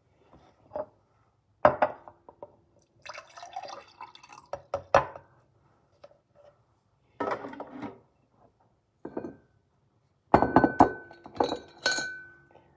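Glassware and dishes clinking and knocking as they are handled: several separate strikes, some leaving a short ringing tone.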